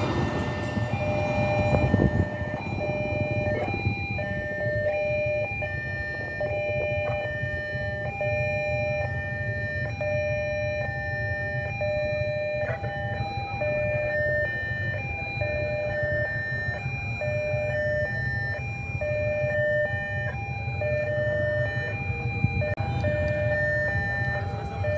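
Electronic railway level-crossing warning alarm sounding continuously, alternating between a lower and a higher tone over and over. The rumble of a freight train's last flat wagons passing fades in the first couple of seconds.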